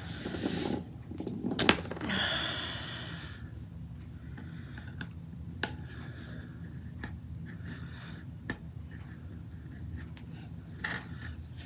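Paper and sticker sheets rustling as they are handled, with scattered light taps and clicks on a tabletop over a low steady hum. The rustling comes just after the start and again about two to three seconds in.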